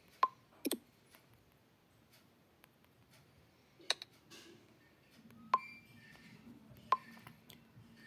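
About five sharp, short clicks, spaced a second or more apart, from tapping through a phone's settings screens. A faint low hum comes in about five seconds in.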